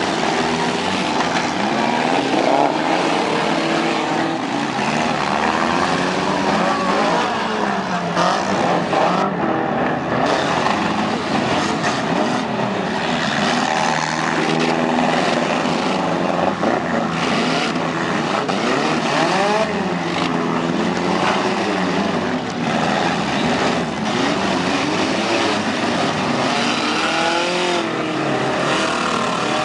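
Several compact-car engines revving hard at once, their pitches rising and falling over one another.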